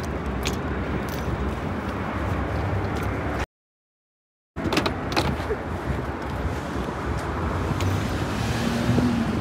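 Steady rumble of road traffic and idling cars, with a few light knocks as a large suitcase is lifted and loaded into a car's boot. The sound cuts out completely for about a second in the middle.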